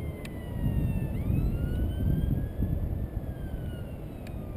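Wind buffeting the camera's microphone high on an exposed spire, a rough low rumble, with faint tones slowly gliding up and down behind it.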